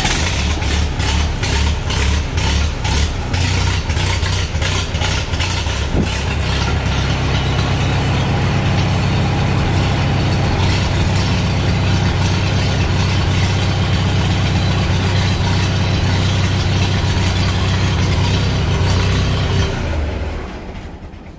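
Farmall Super M's four-cylinder gasoline engine, with its updraft carburetor, cold-started with the choke pulled out: for the first several seconds it runs rough and surging on the over-rich choked mixture. About seven seconds in it evens out into a steady idle as the choke is pushed back in and the mixture leans out, and it winds down near the end.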